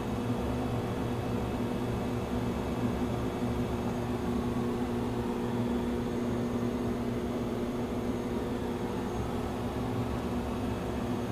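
Airliner flight simulator cockpit filled with a steady, unchanging drone with a few held low hum tones.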